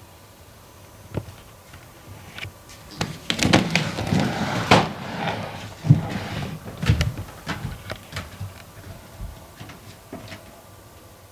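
An irregular run of clicks, knocks and clatters, sparse at first, busiest and loudest in the middle, then thinning out again.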